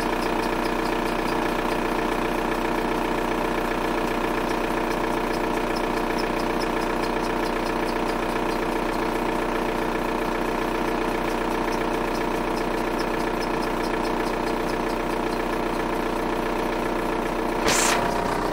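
VW Golf 4 TDI's four-cylinder diesel engine idling steadily with a faint regular ticking, a noise the owner cannot place. A short hiss comes near the end.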